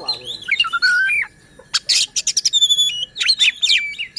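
Oriental magpie-robin (kacer) singing a fast, varied song of gliding whistles, quick rising and falling notes and harsh calls, with a short pause a little over a second in. It is the combative 'ngotot' song that keepers play to provoke other magpie-robins into singing.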